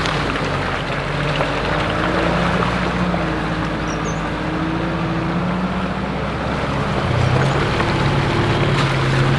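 Four-wheel drive's engine running steadily as the vehicle drives a rough bush track, with tyre and body rumble underneath. The engine note shifts about seven seconds in and carries on lower and stronger.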